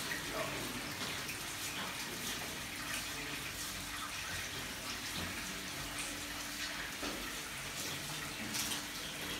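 Spring water trickling steadily, with a few sharper drips through it.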